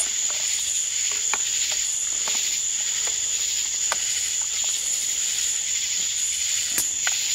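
Night insects, crickets, chirring steadily in a constant high trill, with a few faint short clicks scattered through it.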